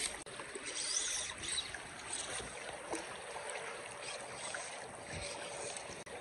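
A small creek's water running steadily over a shallow riffle, an even rush of flowing water.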